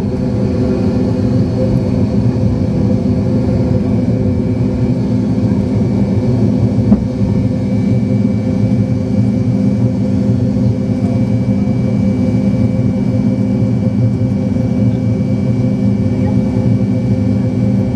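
Jet airliner's engines heard inside the passenger cabin during the climb after take-off: a steady drone with a few held tones. A single brief knock sounds about seven seconds in.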